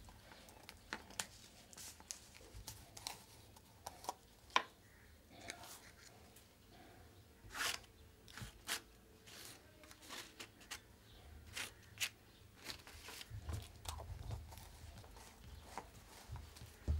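Scattered small clicks, taps and scratchy rustles of painting by hand: a brush working paint onto rough, fibrous paper and plastic paint jars and lids being picked up and set down, with a few low bumps near the end.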